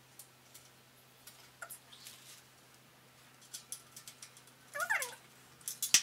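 Light scattered clicks and taps from handling small assembly parts, then a house cat meows about five seconds in, with a sharp click just after.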